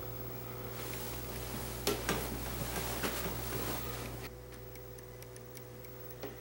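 A clock ticking in a quiet bedroom at night, with bedsheets rustling for about three seconds in the middle.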